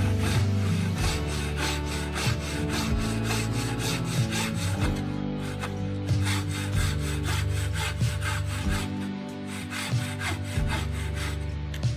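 Background music with a quick steady beat and changing bass notes, with a rhythmic rubbing, sawing sound on wood.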